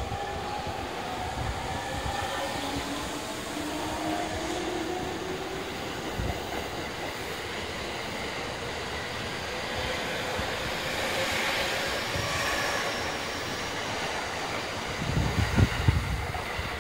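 JR East 209-series electric commuter train pulling out of the station. Its traction inverter gives a whine that rises in pitch over the first few seconds as it accelerates, then the cars roll past with steady wheel-on-rail noise. Near the end, wind buffets the microphone.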